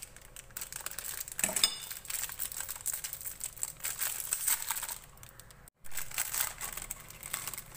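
Foil-lined plastic biscuit packets crinkling and tearing as they are ripped open by hand, a dense irregular crackle. The sound cuts out for an instant about six seconds in.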